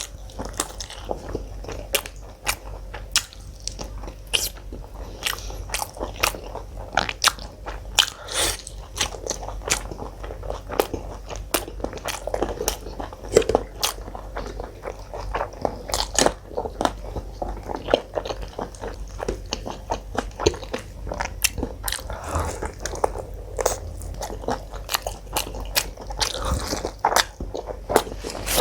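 Close-miked eating: wet, irregular chewing with frequent crisp crunches and smacking clicks as someone chews mutton curry with paratha and salad.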